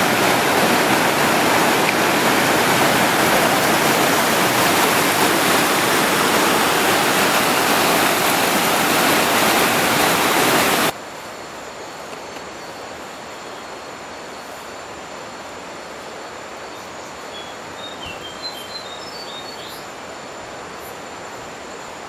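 Shallow rocky river rushing over boulders, a loud steady rush. About eleven seconds in it cuts off sharply to quieter forest background with a steady high-pitched insect drone and a few short bird chirps.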